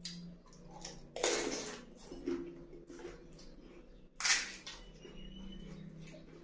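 Crisp fried pani puri shells crunching: one crunched in the mouth about a second in, and another cracked open with the fingers a little past the middle, with smaller crackles between.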